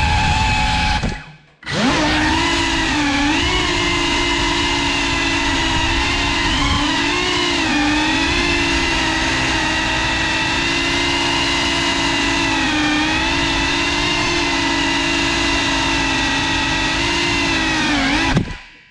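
GEPRC FPV quadcopter's brushless motors and propellers whining, the pitch wavering with the throttle. The sound cuts out briefly about a second and a half in, then spools back up. Near the end it drops in pitch and cuts off.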